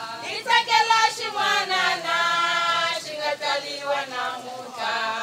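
A group of women singing together.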